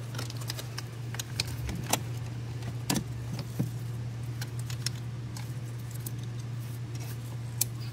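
Plastic wiring-harness connectors and cables clicking and rattling as they are handled, with the sharpest clicks about two and three seconds in, over a steady low hum.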